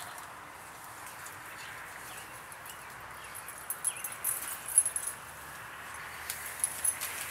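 Branches and twigs cracking and rustling as a person climbs through a tree, with a cluster of sharp cracks about halfway through and a few more near the end, over a steady hiss.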